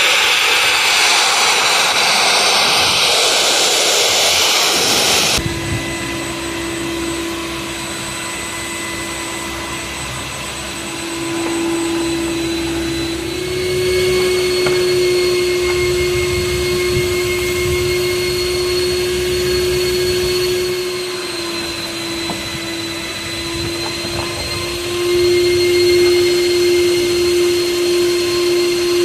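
A loud rushing hiss for about five seconds, then a sudden change to the steady whine of a Skyvac commercial gutter vacuum's motor, its pitch shifting slightly now and then.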